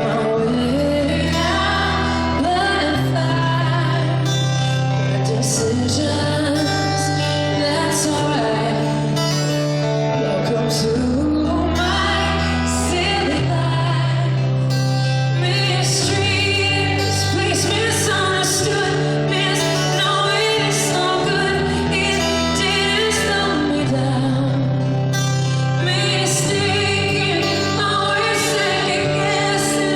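Live band playing a pop ballad with a female lead vocal. Sustained bass notes change every two to three seconds under the singing.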